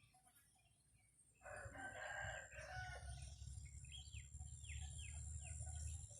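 A rooster crows once, about a second and a half in, followed by a run of short, falling chirps from small birds. A low wind rumble rises under them.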